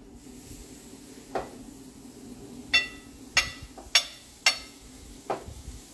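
Burgers being laid on a gas barbecue's metal grill grates: six sharp knocks over a faint steady hiss. Four are bright and ringing, coming in quick succession past the middle, and two are duller thuds, one early and one near the end.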